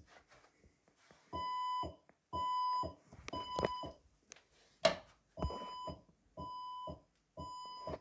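Fire-Lite voice evacuation alert tone sounding in the temporal-three pattern: three steady beeps of about half a second each, a pause of about a second and a half, then three more, signalling an evacuation between the spoken messages. A couple of sharp knocks come in the pause between the two sets.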